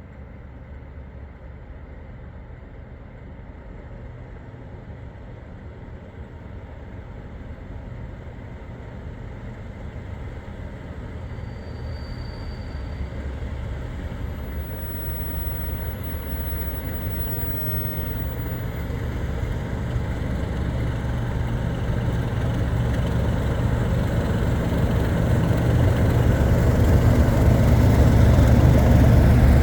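Class 37 diesel locomotive's English Electric V12 engine drumming as it approaches, growing steadily louder.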